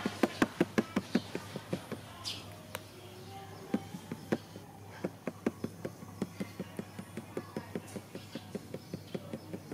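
A rapid series of sharp clicks, about five a second. They are loudest and closest over the first two seconds, fade, then return steadily and more softly from about five seconds in.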